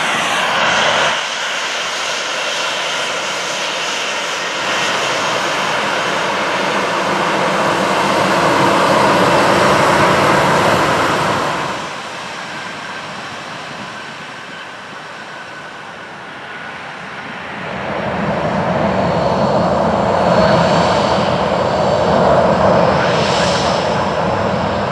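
Boeing 737-700's CFM56 turbofan jet engines running at taxi power as the airliner rolls past: a steady jet rumble and hiss with a faint whine. It eases off about twelve seconds in and swells again later as the jet comes closer.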